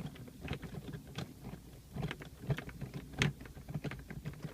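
Irregular light clicks and knocks of plastic centre-console trim around a car's gear shifter being handled and worked loose, with one louder knock about three seconds in.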